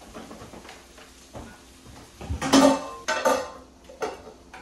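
Kitchen clatter: pots, pans and utensils knocking and clinking in a string of separate strikes. The loudest is a metal clank with a short ring a little past halfway.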